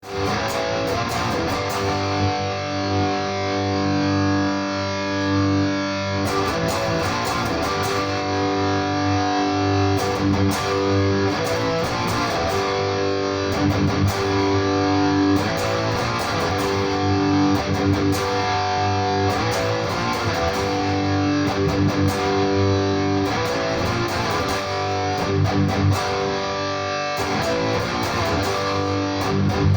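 Electric guitar with an active bridge pickup, played through a Nux MG-300 on a high-gain distortion preset. It plays riffs: held chords ring out between runs of picked notes.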